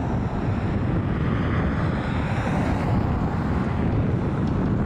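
Twin PW150A turboprop engines and propellers of a Bombardier Dash 8 Q400 running at taxi power as it turns onto the runway: a steady propeller drone, with wind buffeting the microphone.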